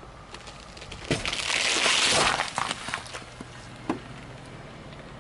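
Whole watermelon crushed under a car tyre: a few small cracks of the rind, then about a second in it bursts with a loud crack and about a second of crunching, splattering noise. A few smaller cracks follow, and a single sharp knock near four seconds.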